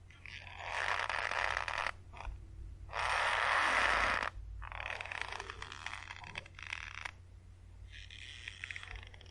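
Rope creaking and straining under tension, in four drawn-out strains of one to two seconds each with short gaps between them. The loudest strain comes about three seconds in.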